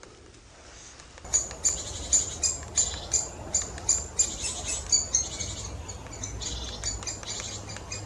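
Great spotted woodpeckers calling at a nest hole: short, sharp, high calls repeated about three times a second, starting about a second in and running closer together later, over a low rumble.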